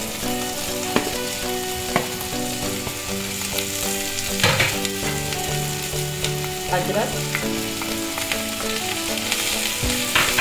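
Chopped vegetables sizzling steadily in butter and oil in a non-stick wok while being stirred, with a few sharp clicks of the stirring utensil against the pan.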